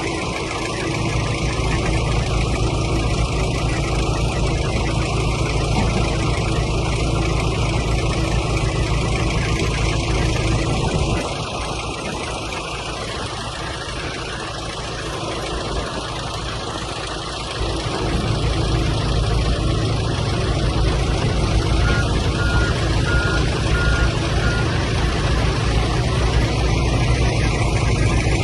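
Excavator diesel engine running under working load, easing off to a quieter idle for several seconds in the middle before running back up. A few faint, evenly spaced beeps sound later on.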